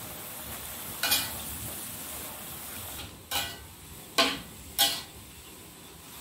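Metal spatula stirring water spinach in a wok, knocking against the pan four times, over a steady sizzle that fades about halfway through.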